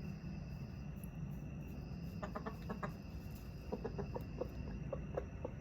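Rooster clucking softly: a quick run of short clucks about two seconds in, then a longer series of short clucks.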